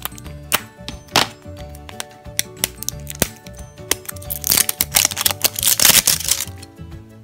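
Small scissors snipping the plastic shrink wrap on a toy capsule, a few sharp snips, then the loose plastic wrapper crinkling loudly for about two seconds from around four seconds in. Background music plays throughout.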